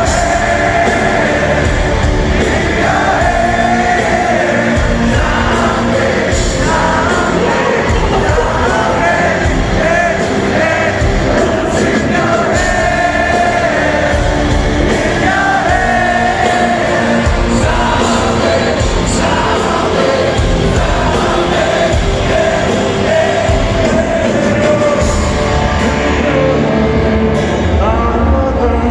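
Live heavy rock band playing with a male lead vocal singing over loud distorted guitars, bass and drums, heard up close in a large arena hall.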